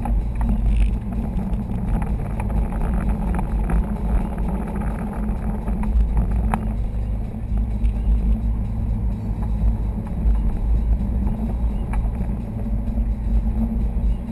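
Inside the cabin of a 2011 Subaru STI cruising at about 40 mph with the windows closed: a steady low rumble of engine and road noise, with the air-conditioning running and a few faint clicks or rattles.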